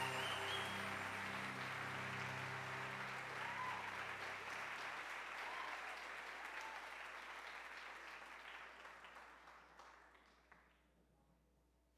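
Audience applauding, dying away over about ten seconds. The music's last held low notes sound under the clapping for the first four seconds or so.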